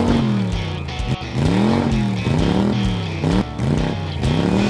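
Upbeat intro music built on a repeating riff whose notes swoop up and back down in pitch over and over, with a steady pulse underneath.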